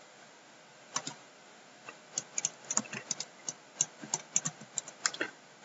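Computer keyboard and mouse clicking irregularly, several short sharp clicks a second, starting about a second in.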